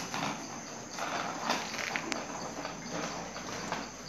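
Children's bicycle with training wheels rolling and rattling over a concrete floor, in uneven surges, with one sharp click about halfway through.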